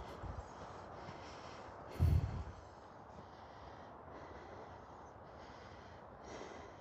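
Footsteps crunching in deep snow at a slow walk, about one step a second, with one loud short exhale of breath about two seconds in.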